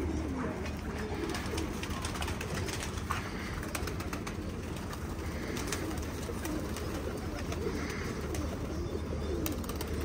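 A loft of domestic pigeons cooing over and over, with scattered short clicks and wing flaps as birds take off. A steady low hum runs underneath.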